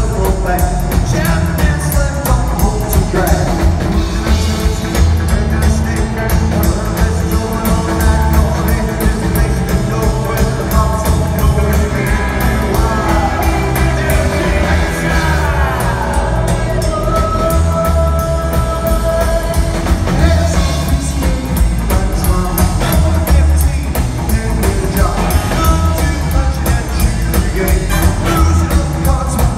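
Rockabilly big band playing live: a male lead vocal over hollow-body electric guitar, drum kit and horn section, with a steady driving beat and a falling slide about halfway through.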